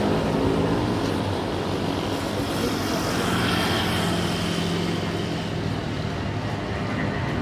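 Jet airliner engines running, a steady rumble with a faint high whine.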